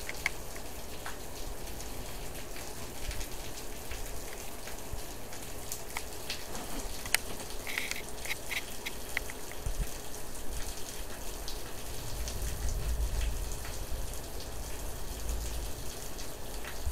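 Rain falling steadily at night, with many small drops ticking close by. A low rumble swells about two-thirds of the way through.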